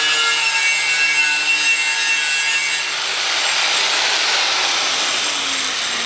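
Electric angle grinder running against the sheet-metal fuel tank of an Allis-Chalmers 310 garden tractor, scrubbing off paint and rust already loosened by electrolysis. A steady, harsh grinding with a whine whose pitch shifts about halfway through.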